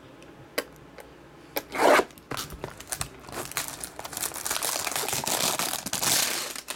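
A utility knife slits the shrink wrap on a trading card box with a short scrape about two seconds in. Then the plastic wrap crinkles and tears as it is peeled off, loudest near the end.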